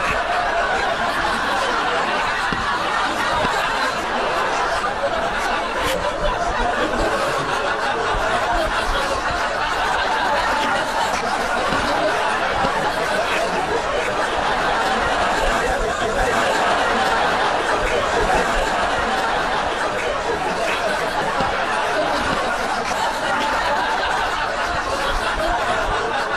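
Continuous laughter from many people, a steady dense crowd laugh with no single voice standing out.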